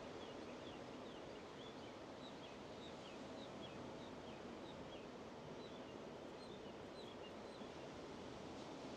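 Ocean surf as a faint, steady wash, with a bird repeating short, falling chirps about three times a second, pausing briefly about halfway.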